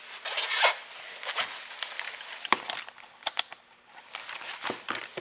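A jacket rustling close against the microphone, with a few sharp clicks and taps of small things being handled on a workbench.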